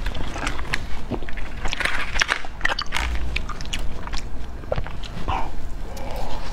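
Close-miked clicks and crackles of a clear plastic tray as a fish-shaped ice cream bar is pulled out of it, then biting into the frozen ice cream bar and eating it.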